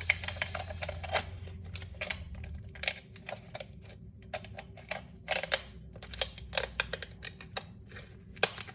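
Two cut aluminium drink-can halves being pressed and fitted together by hand into an alcohol stove body: irregular sharp clicks and crinkles of the thin metal.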